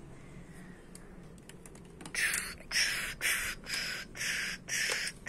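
A child voicing mouth-made fight noises for a toy battle: about six short, sharp hissing bursts, roughly two a second, starting about two seconds in.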